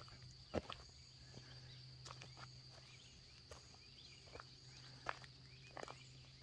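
Footsteps crunching irregularly on a woodland dirt path, the loudest step about half a second in, over a faint steady high-pitched insect drone.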